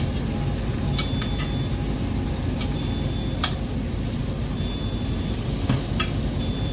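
Butter melting and sizzling in a nonstick frying pan over a steady low rumble, while a metal spoon stirs it and clinks against the pan several times.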